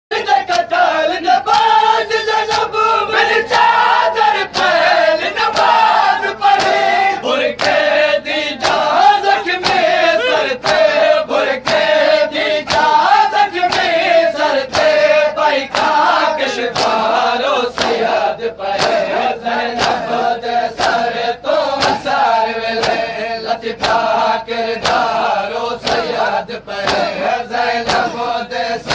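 A group of men chanting a noha (Shia lament) in unison, with sharp rhythmic strikes about twice a second that keep time: matam, open hands beating on chests.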